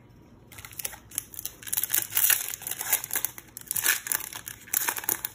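Foil wrapper of a Pokémon TCG Crimson Invasion booster pack being crinkled and torn open by hand: a dense crackling that starts about half a second in and comes in several louder surges.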